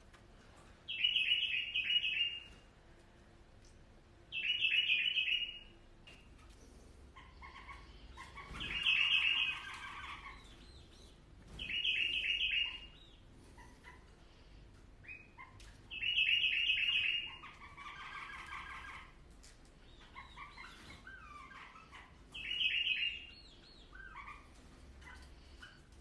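Bulbul singing: about six short phrases of rapid, repeated bright notes, each a second or so long and a few seconds apart, with softer scattered calls between them.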